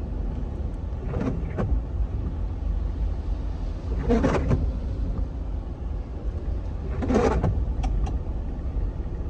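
A car being driven: a steady low road and engine rumble. A few brief snatches of voice come about a second in, near the middle, and near the end.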